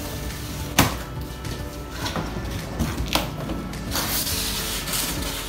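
Background music, over which a box cutter slits packing tape on a cardboard carton and the flaps are pulled open: a sharp knock about a second in, another near three seconds, and a scraping rustle of cardboard past the four-second mark.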